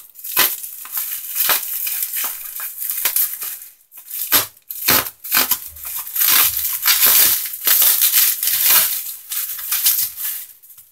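Bubble wrap being handled and pulled open: crinkling and rustling of plastic with scattered sharp clicks, busiest from about six to nine seconds in.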